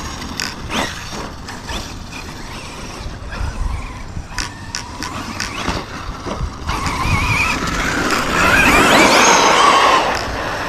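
Brushless electric motor of an Arrma Kraton 6S RC monster truck whining up and down in pitch as it accelerates and slows, with tyre and gravel noise; this starts about two-thirds of the way in and is the loudest part. Before that come scattered clicks and knocks over a low rumble.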